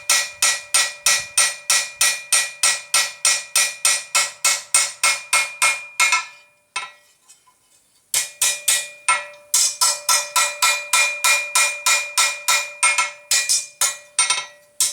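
Blacksmith's hand hammer planishing a steel flat-bar latch blank on an anvil: quick, even blows about four a second that smooth the surface, each ringing with a steady metallic tone. The hammering stops for about two seconds midway, then resumes.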